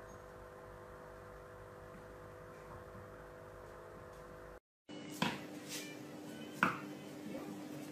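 Low steady hum with a few faint held tones, then after a brief cut, two sharp knocks about a second and a half apart with a few fainter clicks: a tortoise's hard shell knocking on a tile floor.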